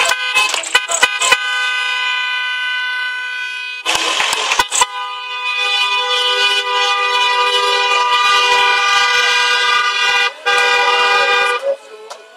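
Two-tone car horn of a Volkswagen Passat estate: a few short toots, then held down in long blasts of several seconds, broken briefly a couple of times.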